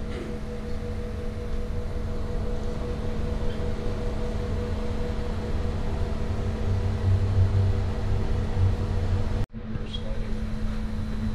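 Steady low rumble and hum of a ship's engines and machinery, heard inside the wheelhouse. The sound cuts out for an instant about nine and a half seconds in, then carries on the same.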